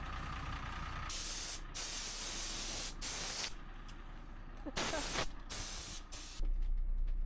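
Several short bursts of spraying hiss in a row, each half a second to a second long. A steady low hum starts near the end.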